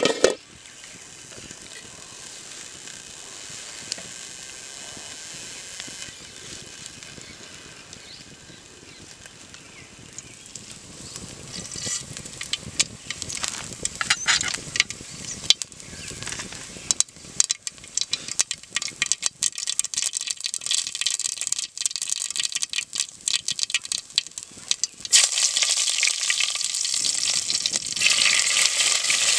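Food frying in oil in a pan: a faint steady sizzle at first, then scattered clicks of stirring from about ten seconds in. The sizzling turns loud and steady about 25 seconds in.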